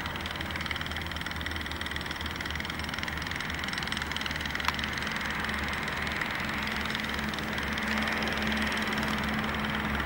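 A steady low engine-like hum under a constant hiss, with one sharp click a little before halfway.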